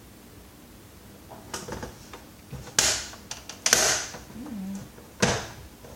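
Hard plastic vacuum-cleaner parts being handled during a teardown: a few light clicks, then three loud clacks of plastic knocking against plastic, about a second apart.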